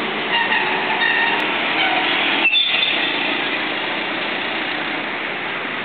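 City street traffic noise: a steady hum of idling vehicles, with faint high-pitched whines on top.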